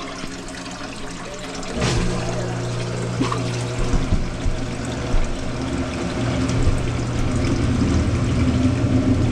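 Kitchen sink faucet water running, then about two seconds in a garbage disposal switches on and runs with a steady hum as the water flows through, with a few brief knocks. The disposal is running freely again after being unjammed.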